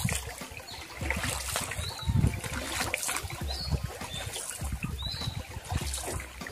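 Wooden canoe paddle dipping and pulling through calm water at an unhurried pace, about one stroke a second, with water trickling and dripping off the blade between strokes and soft low knocks.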